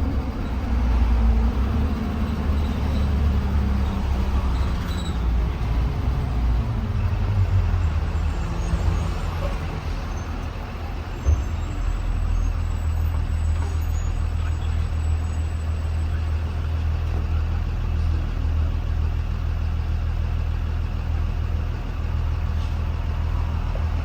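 Blue Bird Vision school bus engine heard from on board, its pitch falling over the first ten seconds or so as it winds down, then running steady at idle. A single sharp click about eleven seconds in.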